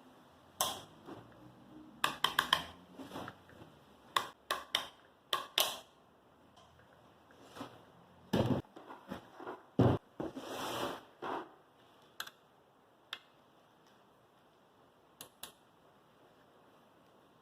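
An angle grinder being handled while switched off: scattered plastic and metal clicks and knocks, two heavier thuds about halfway through, then a short scraping rustle. There is no motor sound.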